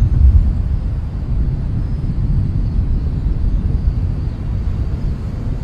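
Low, steady outdoor rumble with no distinct events, a little louder in the first half second.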